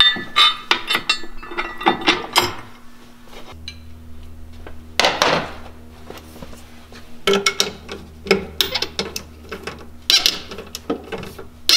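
Irregular metal clinks, knocks and scrapes as a steel Power-Pole mounting bracket and its bolts are handled and fitted against a boat's transom, with a longer scrape about five seconds in.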